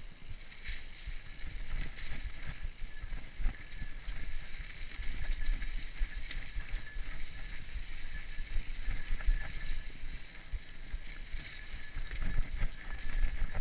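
Mountain bike riding over a leaf-covered dirt trail: tyres rolling on the leaves and the bike rattling and clattering over bumps, with a constant rumble of wind on the microphone.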